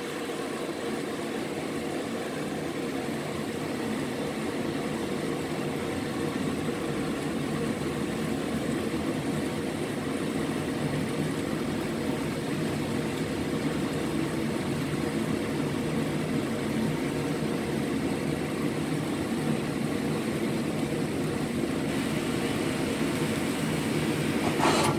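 Steady, even drone of stovetop cooking: cabbage and chicken wings cooking under a glass lid, the noise slowly growing slightly louder.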